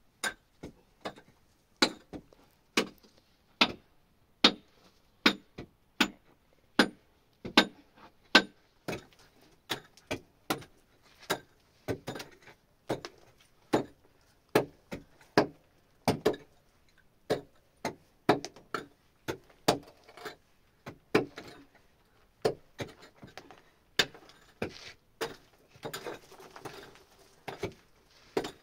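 A steady, rhythmic series of sharp knocks, a little over one a second, as of something hard being struck again and again, with a rustling scrape joining in near the end.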